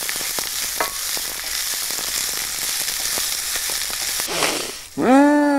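Chopped onion sizzling in hot oil in a frying pan as it is stirred with a wooden spoon: a steady crackling hiss that stops near the end.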